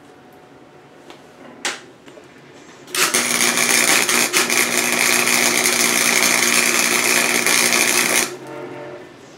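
A short knock, then the arc of a wire-feed welder laying a weld bead: a steady, loud crackling buzz that starts about three seconds in and stops abruptly near the end.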